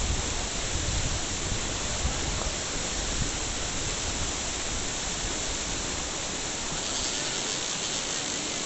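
Steady rushing outdoor noise with low rumbles in the first couple of seconds.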